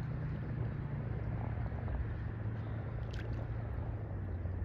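Low, steady drone of a passing lake freighter's engines carried across the river, over wind and water noise.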